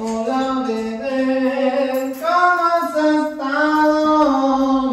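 Background music: a song with a woman's voice singing long held notes that step to a new pitch every second or so.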